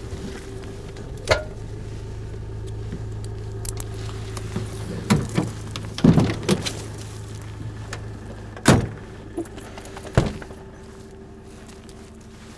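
Pickup truck's engine idling with a steady low hum, while sharp knocks, thuds and metallic clinks of leash and tailgate gear come every second or two as a hound is handled at the open rear of the truck. The loudest thud comes about two-thirds through, and the hum stops with it.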